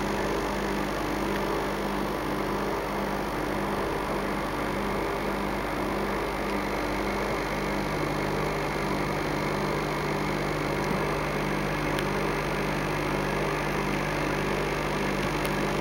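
Steady electrical hum with a low buzz that pulses about twice a second; a second steady low tone joins about halfway through.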